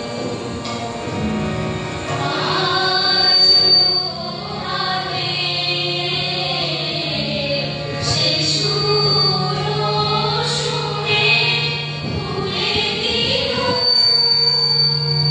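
Live dance music: several voices singing together, accompanied by a harmonium holding a steady low note and by tabla.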